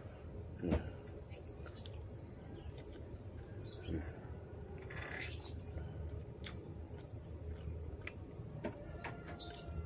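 Quiet room tone with a low steady hum, scattered faint clicks and a few short high chirps.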